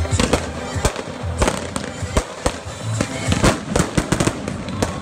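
Aerial fireworks bursting overhead: a rapid, irregular string of loud bangs and crackles, several every second.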